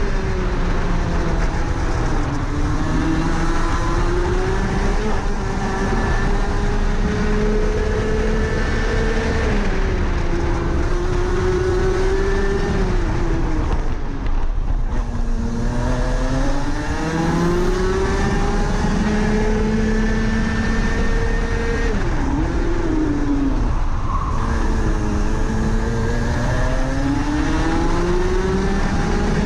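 Rotax Max Senior 125 cc single-cylinder two-stroke kart engine at racing speed, heard onboard. Its note climbs steadily on the straights and drops sharply several times as the kart brakes for corners, then winds up again.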